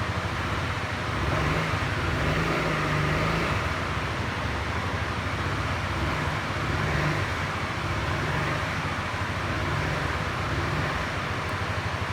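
Honda SH350 scooter's single-cylinder four-stroke engine running at idle, its note rising and louder twice: from about a second and a half in to three and a half seconds, and again around seven seconds.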